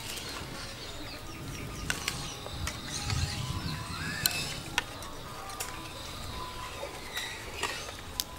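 A metal spoon clinking and scraping in a ceramic bowl, with a leaf being handled and folded into a wrapper; several separate sharp clicks.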